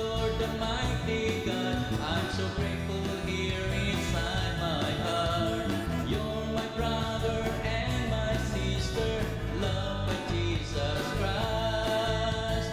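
Background music with guitar and a singing voice, country-styled.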